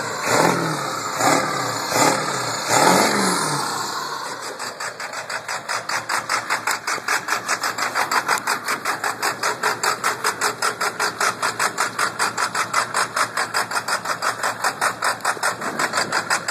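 A 2001 Ford pickup's engine revved in quick blips through its side-exit exhaust, about five short revs, then settling to an idle that pulses about five times a second.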